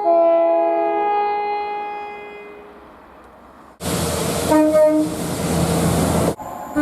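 Train horn sounding a held chord of several tones that fades away over about three seconds. After a short gap, a train passes close with a loud rushing noise and gives two short toots of its horn, cut off abruptly.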